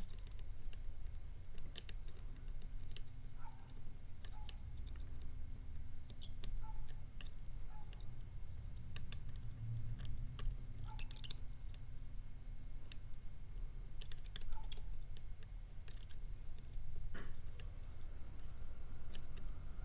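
Small metal clicks and scrapes of a pick working the pins of a cheap tubular lock, coming irregularly, a few at a time, with a steady low hum underneath.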